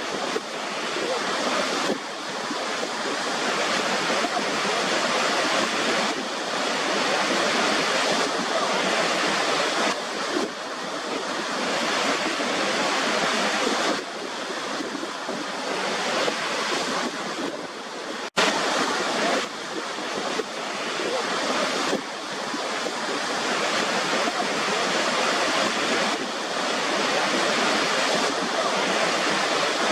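Waterfall: water pouring and rushing in a steady, full hiss that swells a little every few seconds, with a momentary dropout about eighteen seconds in where the recording cuts and restarts.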